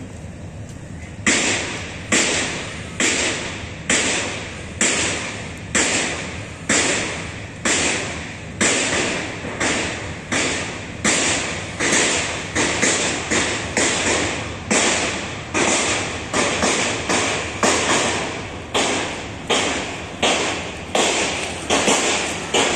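Footsteps of someone walking close to the microphone: a regular run of sharp taps about one a second, quickening to about one and a half a second in the second half.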